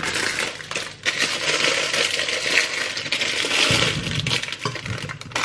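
Cherry tomatoes poured out of a plastic bag, tumbling and knocking into a baking dish in a dense stream of small taps, with a brief pause about a second in.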